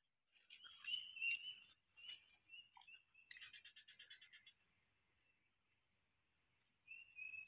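Insects trilling in a steady high-pitched drone that starts about half a second in, with scattered clicks and knocks and a few short high chirps over the first few seconds, and another chirp near the end.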